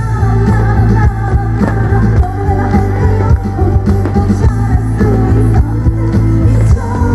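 A singer performing live into a microphone over loud amplified backing music with heavy bass and a steady drum beat, heard through the stage PA speakers.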